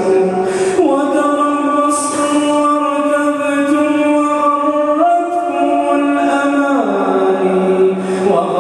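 A man's solo voice reciting the Quran in the melodic tajweed style as he leads prayer, drawing out long held notes that step up and down in pitch a few times, heard through the mosque's microphone.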